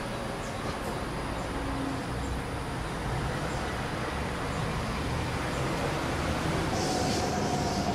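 Steady road traffic noise from passing vehicles, with a faint steady whine coming in near the end.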